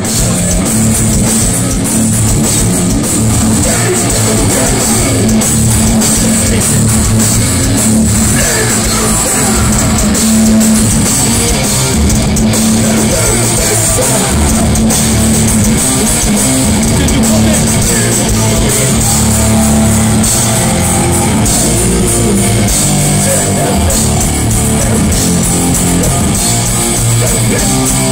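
Live hardcore punk band playing loud and without a break: distorted electric guitars and a drum kit, with the singer's vocals over them.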